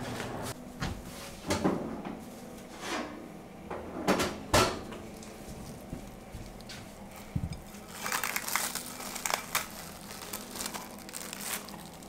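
A few sharp knocks and clunks of kitchenware being handled, the loudest about four seconds in. Then, in the second half, plastic cling wrap crinkles as it is peeled off a glass mixing bowl.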